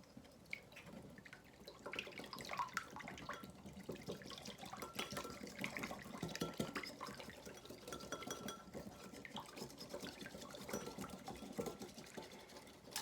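Wire whisk stirring a runny honey and apple cider vinegar glaze in a bowl: soft, irregular wet clicks and taps of the whisk against the bowl.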